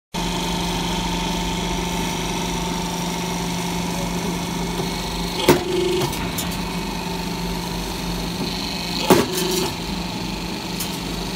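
C purlin roll forming machine running with a steady hum. Twice, about five and nine seconds in, the hydraulic punching station strikes with a sharp bang, each followed by a brief tone.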